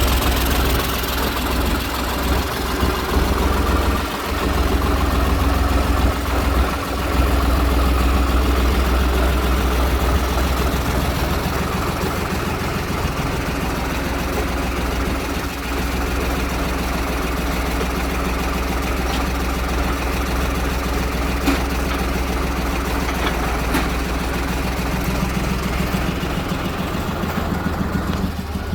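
Koyker backhoe's engine running steadily, with a deep, even rumble.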